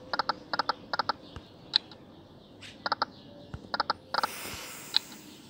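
Online slot game's electronic reel sound effects: quick clusters of short, bright ticks as the spinning reels land. There is a short rush of hiss just after four seconds.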